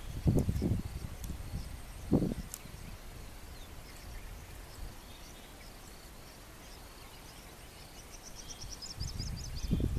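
Outdoor field ambience: faint high chirping of insects and birds, with a quick high trill about 8.5 seconds in. Low rumbling bumps on the microphone come about half a second in, again near two seconds, and return near the end.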